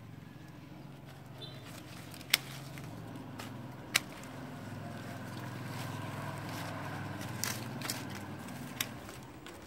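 Pruning shears snipping through woody tea-plant stems: two sharp snips about a second and a half apart, then a few fainter clicks near the end. A steady low engine hum runs underneath.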